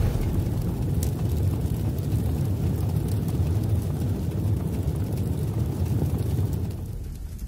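Low rumbling sound effect of an animated title intro, steady and fading out near the end.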